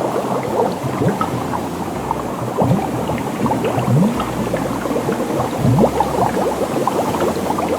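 Water bubbling and gurgling: a steady mass of small, irregular bubble pops and chirps.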